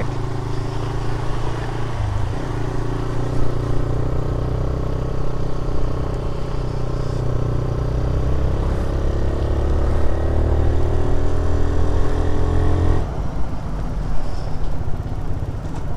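TVS Raider 125 single-cylinder engine running under way, its note slowly rising as it gathers speed, over a steady rumble of road and wind. The engine note drops away abruptly about thirteen seconds in.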